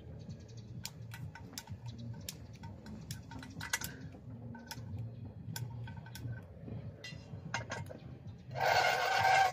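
Scattered sharp clicks and clinks as cookware and a small portable camping stove are handled during lighting. Near the end there is a louder noisy burst lasting about a second.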